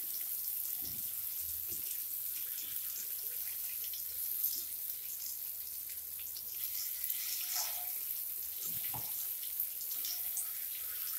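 Masala-coated steamed egg rounds sizzling steadily in hot oil in a nonstick frying pan, with a few scrapes and taps of a wooden spatula as they are turned over.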